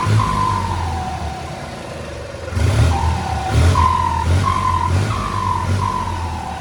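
Turbocharged engine revved in a series of short blips, its turbo whistling at a high pitch with each blip. The whistle slides down in pitch as the turbo spools down after the first blip and again near the end.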